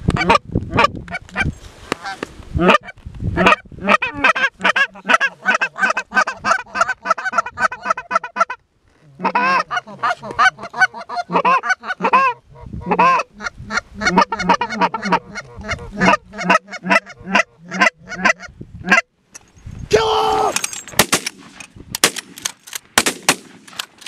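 Canada geese honking and clucking in a rapid, nearly unbroken string of calls, which breaks off briefly twice.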